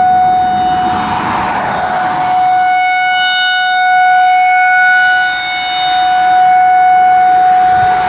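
Federal Signal 2001-SRNB rotating electromechanical siren sounding a steady single-pitch alert tone, swelling and fading as its horn sweeps around, loudest and brightest about three to five seconds in when it faces the listener. A passing car's road noise rises about a second in and again near the end.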